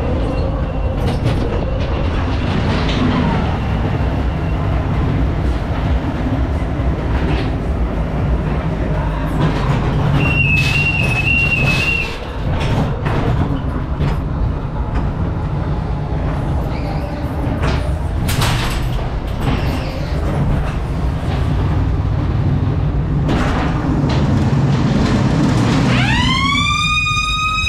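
Ghost train car running along its track with steady fairground noise around it, and a brief two-tone warbling beep about ten seconds in. Near the end a siren-like wail rises quickly and then holds steady.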